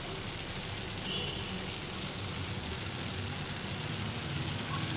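Pan of cooked broad beans sizzling steadily on the stove.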